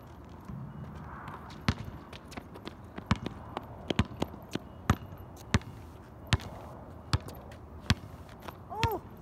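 A basketball bouncing on an outdoor asphalt court: dribbling, a sharp bounce roughly every half to one second, starting a couple of seconds in. A few short squeaks come near the end.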